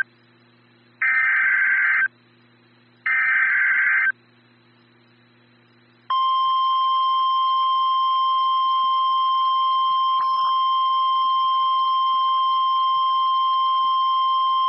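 Emergency Alert System warning signal: two buzzing data bursts about a second long, a second apart, from the SAME header. About two seconds later the steady single-pitch NOAA Weather Radio warning alarm tone sounds for about nine seconds, announcing a tornado warning.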